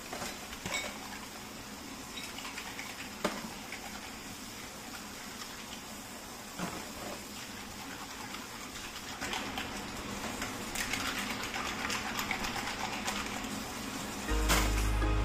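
Kitchen tap running into a stainless-steel sink as a plastic container and its lid are rinsed under the stream, with a few knocks and clatters from handling them. Music comes in about a second before the end, louder than the water.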